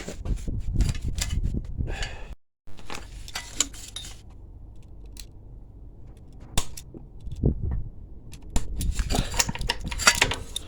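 Tools and metal parts clinking and knocking in irregular, scattered strikes during motorcycle disassembly work, broken by a brief cut to silence a couple of seconds in.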